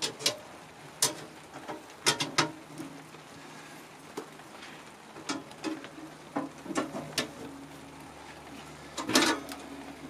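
Metal parts of a small wood-burning camping stove clinking and knocking as the grates are fitted in, a scatter of sharp irregular knocks with a quick cluster near the end.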